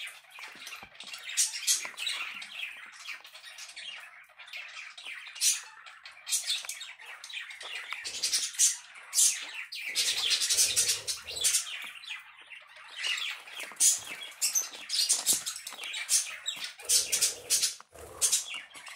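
Small pet parrots bickering: rapid flurries of short, harsh chirps and squawks, coming in repeated bursts.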